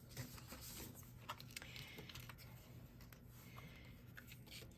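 Near silence: a low steady hum with a few faint soft clicks and rustles of paper and card being handled on a craft table.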